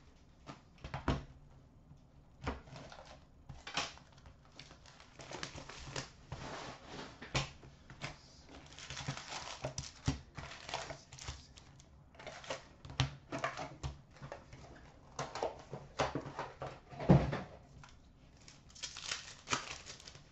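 Hands unwrapping a box of hockey card packs and tearing open the foil packs: irregular crinkling and tearing of plastic and foil wrapping, with sharp taps as packs are handled and set down.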